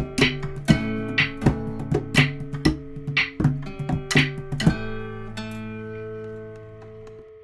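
Guitar intro music: chords strummed about twice a second, then a last chord left ringing and slowly fading from about five seconds in.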